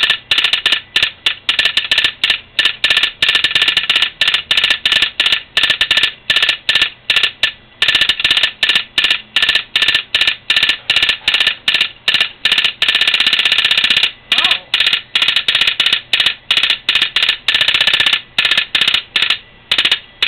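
Railroad telegraph clicking out American Morse code in quick, irregular runs of clicks separated by short pauses, sending a train order.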